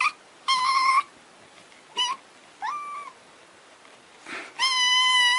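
A cat meowing repeatedly in high, drawn-out calls: a few short meows, one rising into a held note, then a longer steady meow near the end.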